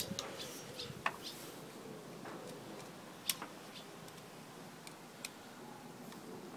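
A few light, scattered clicks and taps from megger test leads and clips being handled at the compressor terminals. The sharpest click comes about three seconds in.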